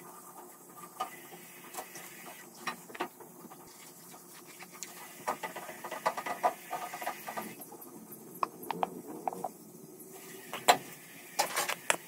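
Light taps, clicks and rustles of craft materials handled on a wooden table: thin wooden sticks, balloons, a ceramic bowl and a plastic glue bottle, with a busier run of small rattles midway and a few sharper clicks near the end.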